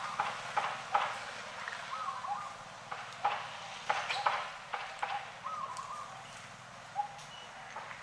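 Several short animal squeaks or chirps, with many sharp clicks and rustling throughout.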